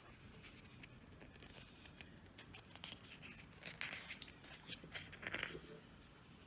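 Faint rustling and scratching of things being handled, with a cluster of brief scrapes and rustles about halfway through.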